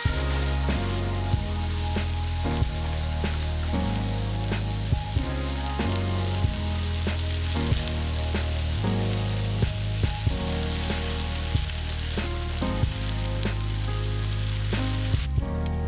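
Food sizzling and frying in a pan, with occasional sharp clicks, over background music with a steady bass line. The sizzle cuts out just before the end, while the music carries on.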